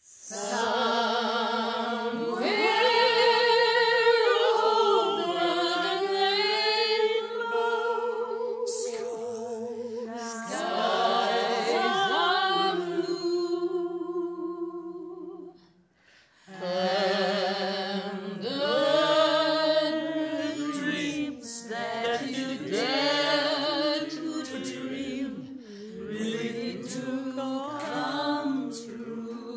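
A small group of men and women singing together, holding notes with vibrato, with a short break about halfway through before the next phrase.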